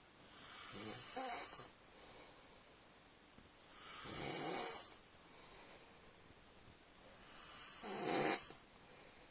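A sleeping man snoring loudly: three long snores about three and a half seconds apart, each swelling for about a second and a half and then breaking off, with a rasping hiss.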